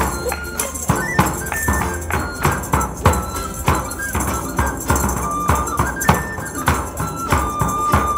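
Live medieval-style folk music: a frame drum and jingles keep a steady, quick beat, a small end-blown pipe carries the melody in held notes, and a small lute-like string instrument is plucked underneath.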